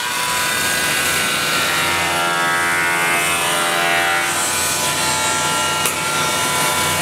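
Electric angle grinder with a sanding disc sanding a curved wooden chair-frame part: a steady motor whine over the hiss of abrasive rubbing on wood, held at an even level.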